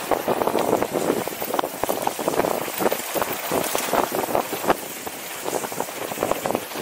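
Mountain bike ridden fast down a dry dirt trail, heard from a camera on the bike or rider: steady tyre noise over dirt and small stones, the bike rattling, with many quick knocks from bumps, and wind on the microphone.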